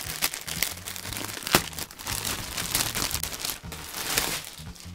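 Clear plastic packaging bag crinkling and rustling as a hoodie is pulled out of it, with a sharp crackle about one and a half seconds in.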